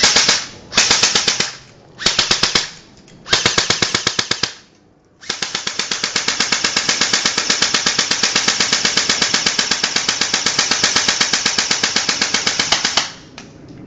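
SRC RPK airsoft electric gun firing on full auto: four short bursts, then one long burst of about eight seconds, each a fast, even rattle of shots that stops sharply.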